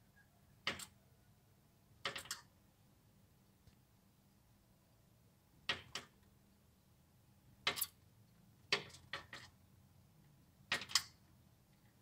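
A small bird striking a window pane again and again, beak and wings tapping and fluttering on the glass in short runs of sharp taps every second or two. It is attacking its own reflection, most likely in defence of its territory.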